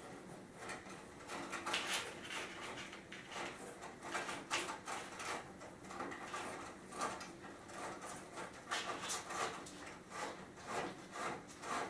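Wire rope cable being pulled and fed through holes in the wooden sections of a chair backrest: faint, irregular scraping and rubbing strokes with small knocks of wood and cable.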